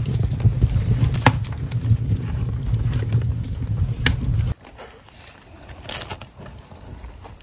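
A loud, steady low rumble with scattered crackles that cuts off suddenly about halfway through. It gives way to quieter crisp crunching and clicking as a metal pizza cutter rolls through a thin, crisp pizza crust on a wooden board.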